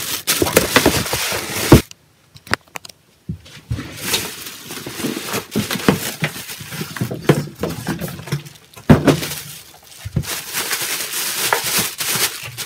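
Plastic wrapping crinkling and rustling around a heavy hoverboard as it is handled and lifted out of its cardboard box. There are sharp knocks of the board against the box, a loud one about two seconds in and another about nine seconds in.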